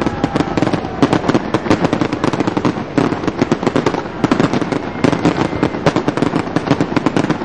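Aerial fireworks going off in a dense, rapid barrage: a steady stream of bangs and crackling pops, several a second, with no let-up.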